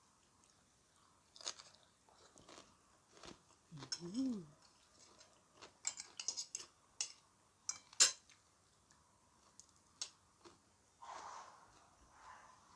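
Close-miked chewing of food with irregular crisp crunches and wet mouth clicks, and a brief hummed 'mm' about four seconds in.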